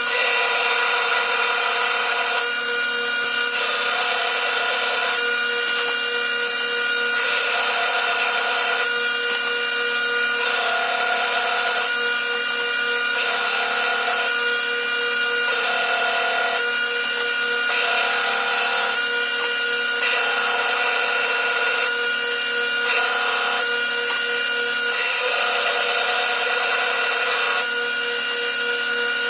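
A power tool motor running steadily, its tone changing every second or two as the load on it comes and goes.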